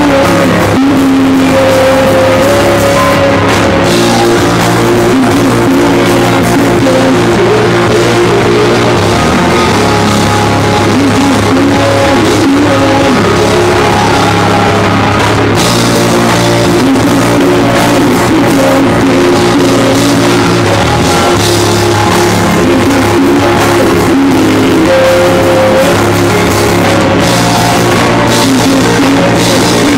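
A live rock band playing loud: electric guitars, bass guitar and drum kit together in a continuous song.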